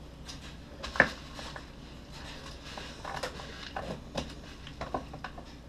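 A single sharp click about a second in, then scattered light rustles and scrapes as a padded paper mailer envelope is handled and slit open with a pocket knife.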